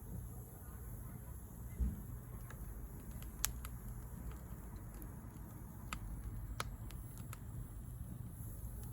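Firewood burning in a fire pit, with scattered sharp crackles and pops over a low steady rumble, and a dull thump a couple of seconds in.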